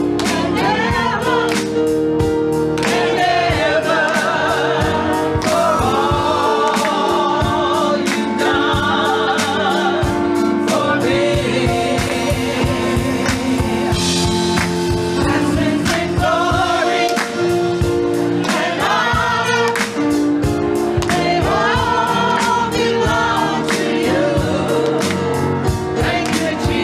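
Gospel music: a choir singing over held chords with a steady beat.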